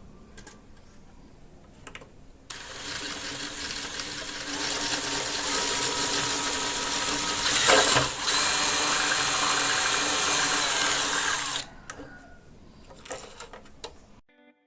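A small high-speed electric motor whirs steadily for about nine seconds, surging briefly louder once near the middle. Faint clicks and handling noises come before and after it.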